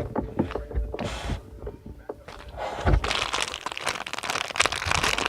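Handling noise: crinkling and rustling of plastic packaging, with a sharp knock about three seconds in, followed by a stretch of dense crackly rustling.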